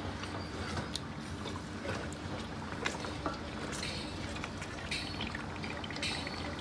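Wooden spoon stirring thick red stew in a metal pot: wet sloshing and squelching, with a few light clicks of the spoon against the pot.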